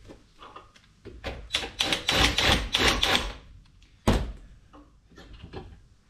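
Drill spinning a thread-dressing tool on the cut end of a threaded-rod stud, a rattling chatter lasting about two seconds that cleans up the cut threads. It is followed by one sharp knock about four seconds in and a few lighter clicks.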